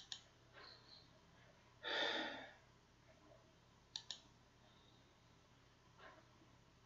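Faint computer mouse clicks: a quick double click at the start and another about four seconds in, as a program is opened from the taskbar. Between them, a soft breath exhaled into the microphone.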